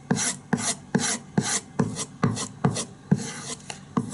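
Fallkniven F1 knife blade being stropped on a thick, hard leather strop charged with 0.5-micron diamond spray: rapid back-and-forth scraping strokes, about two or three a second, each starting sharply.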